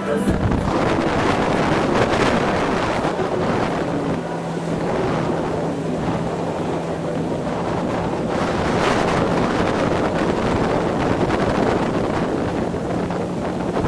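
Motorboat under way: the engine holds a steady low drone, with water rushing along the hull and wind buffeting the microphone in gusts.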